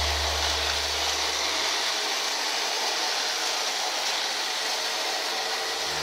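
Philips EasyStar FC8802 robot vacuum running, giving a steady whirring hiss as it moves along the floor.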